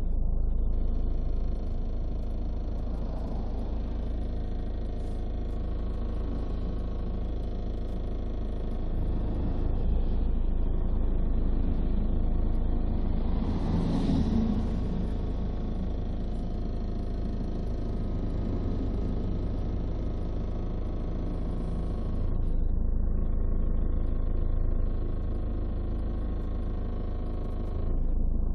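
Ford TDCi turbodiesel engine running with a steady rumble, carrying an abnormal noise. It grows louder for several seconds around the middle and again briefly later on.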